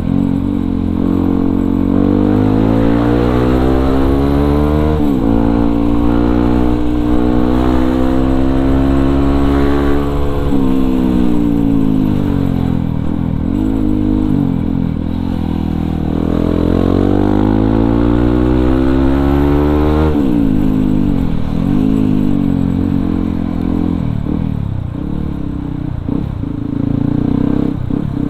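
Yamaha WR155R's single-cylinder engine, through an aftermarket racing exhaust, pulling through the gears. The pitch climbs steadily and then drops suddenly at three upshifts. In between, and near the end, the engine eases off and picks up again in uneven dips and rises.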